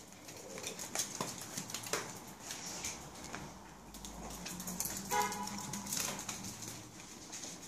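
A Samoyed puppy and a Yorkshire terrier playing on a wooden parquet floor: their claws click and skitter rapidly as they scramble about. One short yelp about five seconds in.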